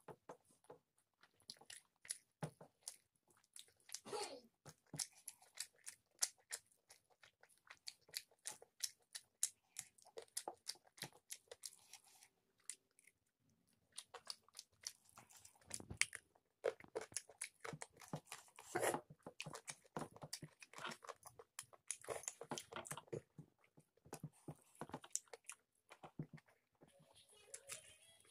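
Close mouth sounds of a person chewing a mouthful of rice and chicken curry eaten by hand: many short, wet clicks, with a brief lull about halfway through.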